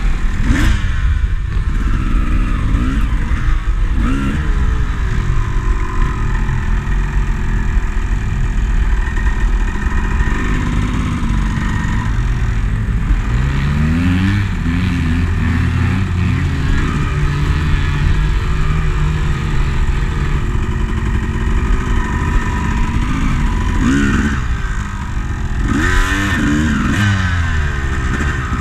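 Two-stroke dirt bike engine running close by, revved up and down in repeated short rises and falls between stretches of lower running, with other dirt bikes' engines nearby.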